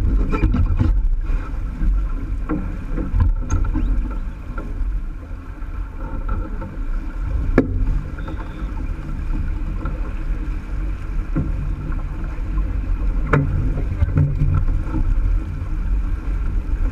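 Water rushing and splashing along the hull of a J/24 keelboat sailing at speed, a steady low rush, with two sharp knocks from on deck, one about halfway through and one later.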